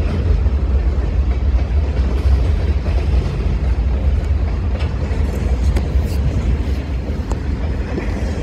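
Boxcars of a Norfolk Southern mixed freight train rolling past: a steady low rumble of wheels on rail, with a few faint clicks.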